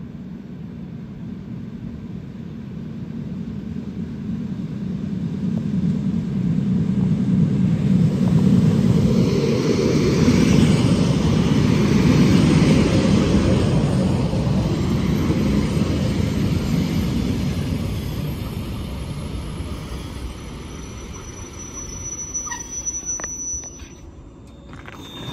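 EP2D electric multiple unit pulling into a station platform: the wheels rumble on the rails, growing louder as the cars run past and then dying away as it slows. Near the end a thin high brake squeal sounds as the train comes to a stop.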